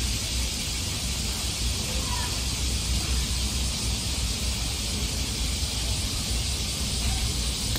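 Steady background noise: a low rumble under an even hiss, with no distinct sounds standing out.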